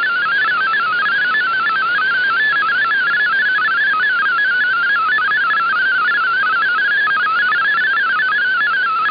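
MFSK32 digital-mode data signal received on a shortwave receiver in upper sideband: a rapid warbling stream of single tones hopping up and down within a narrow band, over steady band hiss.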